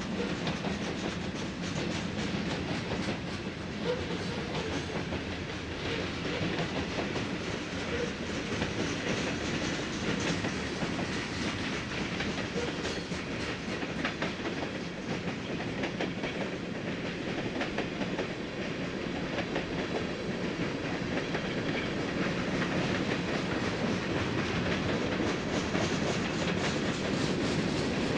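Freight train cars rolling past: a steady noise of steel wheels on rail, growing a little louder over the last few seconds.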